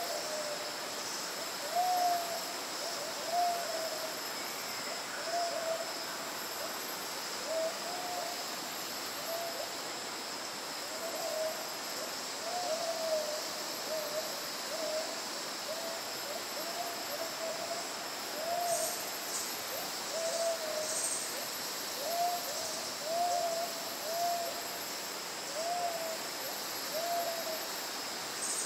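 Repeated hooting calls from a jungle animal: short notes that rise and fall, about one a second, sometimes overlapping as if from more than one caller. A steady high insect drone continues underneath.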